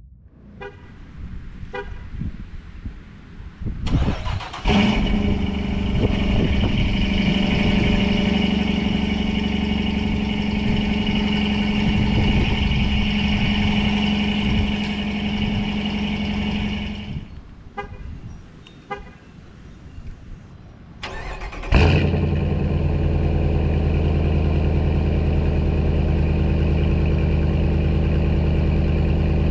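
Dodge Durango R/T's 5.7-litre HEMI V8 starting about four seconds in and idling steadily, then shutting off, with a few clicks before each start. A second HEMI V8 start comes about three quarters of the way through, louder and with a stronger low rumble, and settles into a steady idle.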